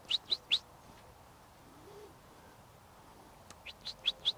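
Handler's herding whistle: a quick run of about four short rising notes at the start and another run of about five near the end, a whistled dog-working command.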